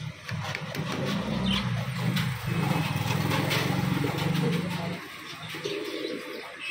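A motor engine running with a steady low hum that stops about five seconds in.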